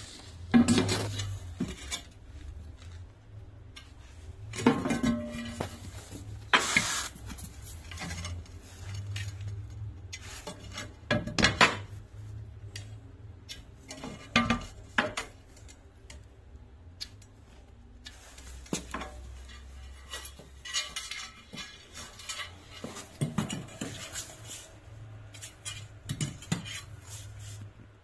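Loose ceramic floor tiles being handled and moved around on a tiled floor: irregular hard clinks and knocks of tile against tile, with scraping between them and a few louder knocks.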